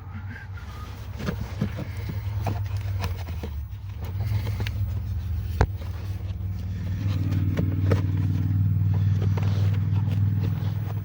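A vehicle engine running with a steady low hum that grows louder and fuller about seven seconds in, over scattered light clicks and knocks of handling.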